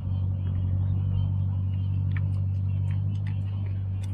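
Vehicle engine idling: a steady low hum, with a few faint clicks over it.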